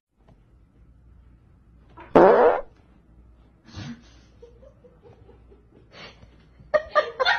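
A small dog breaking wind: one short, loud fart about two seconds in.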